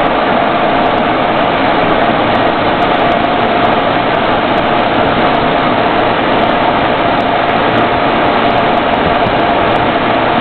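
Steady engine and road noise inside the cab of a military convoy vehicle driving along a paved road, with one constant droning note running through it.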